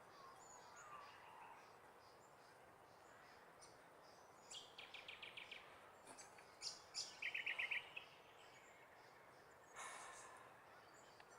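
Faint birdsong: two short rapid trills of repeated high notes about halfway through, with a few sharp chirps between them, over quiet outdoor background noise. A brief rush of noise comes near the end.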